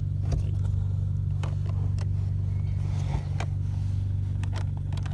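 Steady low hum of an idling car engine, with scattered light clicks and rustles of a wire and plastic trim being handled while the wire is tucked out of sight.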